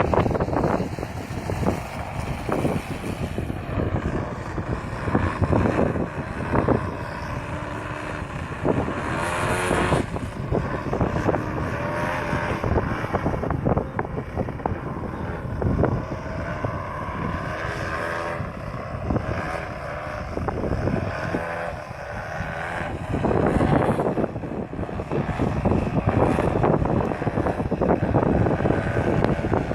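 Desert Aircraft DA70 twin-cylinder two-stroke petrol engine of a large 3D aerobatic RC plane in flight, its pitch repeatedly rising and falling as the throttle is worked through manoeuvres.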